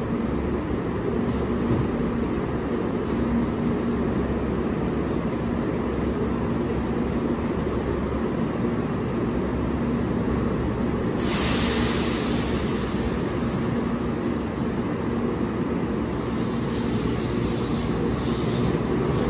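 Keihan 1000-series electric train standing at the platform, its equipment humming steadily with a low rumble. About eleven seconds in, a loud hiss of compressed air starts and carries on, and near the end a few sharp clicks come as the train begins to pull away.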